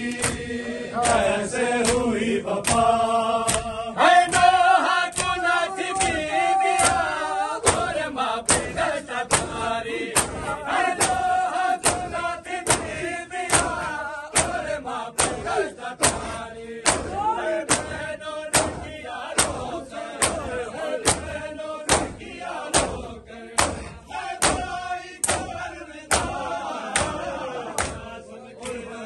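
A crowd of men chanting a noha in unison, with matam: bare hands striking bare chests together in a steady beat, a little faster than once a second.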